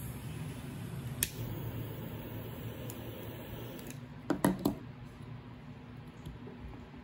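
A low steady hum, with one sharp click about a second in and a quick run of three louder clicks and knocks a little past four seconds.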